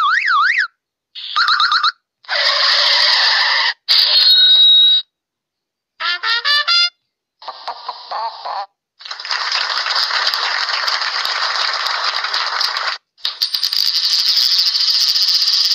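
A run of short comedy sound-effect ringtones played back one after another, each cut off by dead silence: quick warbling up-and-down whistles near the start, a rapid string of short pitched notes about six seconds in, and two long noisy stretches filling the second half.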